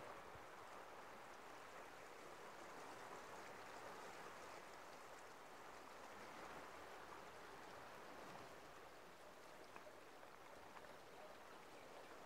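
Faint, steady rushing of river water flowing beneath the bridge during the spring ice run, with a few faint ticks.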